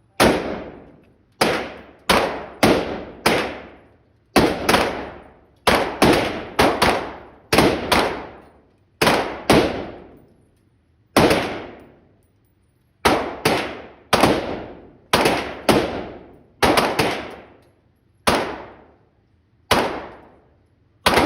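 A long string of gunshots fired one at a time at an uneven pace, roughly one or two a second, each sharp crack ringing out for about a second.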